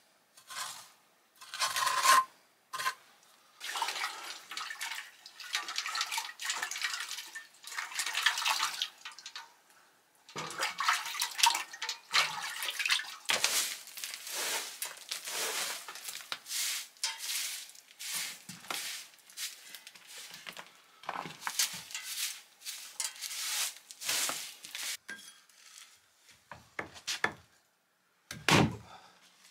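Repeated rasping strokes as the top of a brick stove is scraped with a flat metal scraper and swept with a straw hand broom, stroke after stroke with short pauses. A dull thump comes near the end.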